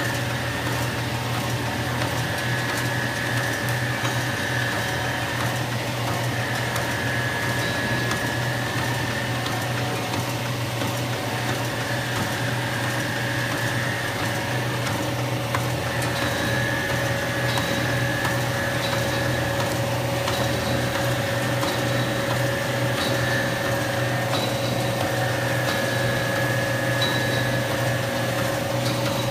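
Automatic end sheet tipping machine running steadily: a constant low hum with a higher tone that comes and goes every few seconds as it cycles, and faint light ticks in the second half.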